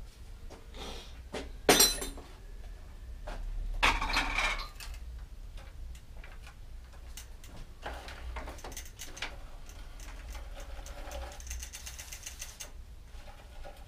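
Metal hand tools and bicycle parts clanking and rattling during work on a rear wheel: one sharp clank about two seconds in, a scraping rattle around four seconds, then a run of small clicks and rattles.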